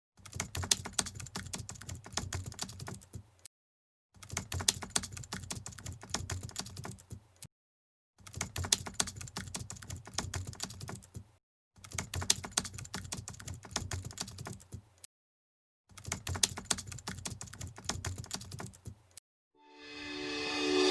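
Computer keyboard typing in five bursts of rapid clicking, each about three seconds long, with dead silence between them. Music fades in near the end.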